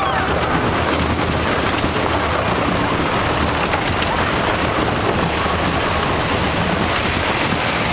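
Grizzly wooden roller coaster train running at speed, its wheels making a dense, steady clatter on the track, mixed with wind rushing over the microphone.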